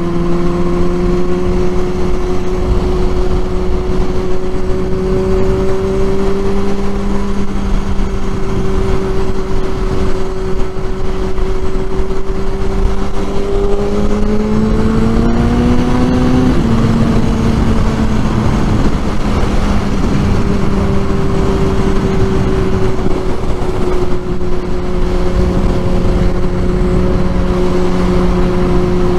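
Kawasaki Z1000's inline-four engine running at steady revs, climbing in pitch about fourteen seconds in, then dropping back and holding steady again.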